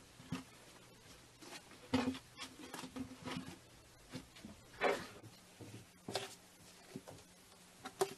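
Slime being handled, pressed and poked, giving irregular short wet clicks and pops; the strongest come about two and five seconds in.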